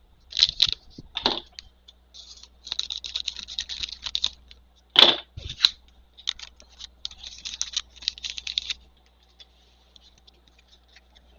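Trading-card packs and cards being handled: rapid crackling and rustling in several bursts, as of a foil pack wrapper being opened and cards slid through the hands, with one sharp knock about five seconds in.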